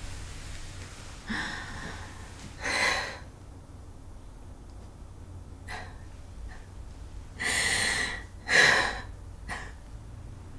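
A woman crying: sharp, gasping sobbing breaths and sniffs, about seven separate ones, the two loudest coming close together about three quarters of the way through.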